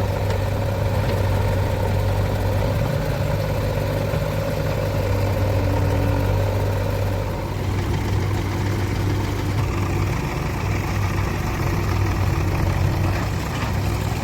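Diesel engine of a JCB 3DX backhoe loader running steadily at a constant level, its note shifting slightly about halfway through.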